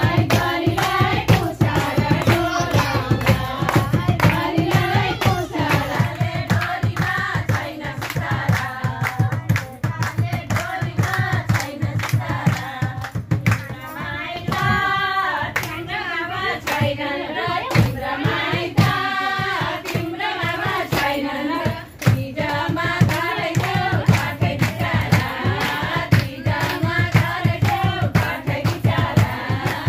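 A group of women singing together and clapping in time, the clapping steady and even beneath the song.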